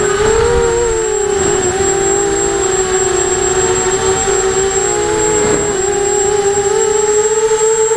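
Eachine Racer 250 quadcopter's brushless motors whining steadily, several close pitches drifting apart and back together as the throttle and motor speeds shift.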